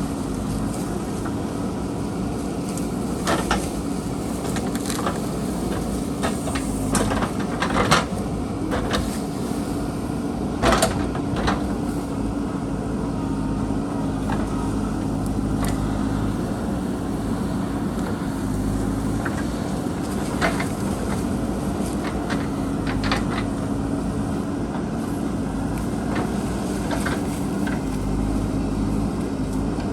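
JCB backhoe loader's diesel engine running steadily while it digs, with a scattering of sharp metal clanks and knocks from the digging work, the loudest about a third of the way in.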